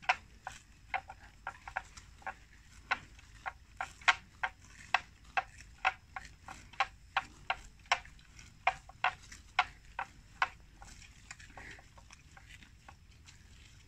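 Water buffalo grazing on water plants: a run of sharp, crisp bites, about two a second and somewhat irregular, that dies away to a few faint ones about ten seconds in.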